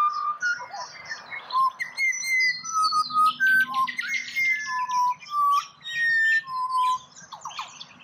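Pied butcherbirds, an adult and a brown juvenile, singing together: clear whistled notes, some held for about half a second, overlapping with quicker, higher chirping notes.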